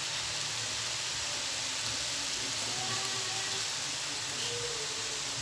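Meat, cabbage and vegetables sizzling steadily in a hot pan as a stir-fry cooks.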